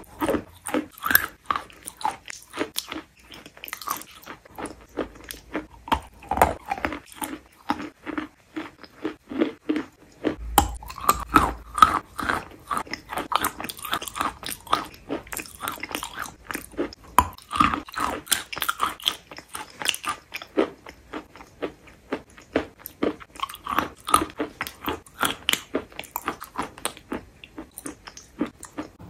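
Wet chalk paste being chewed, with wet mouth clicks and smacks coming thick and irregular throughout.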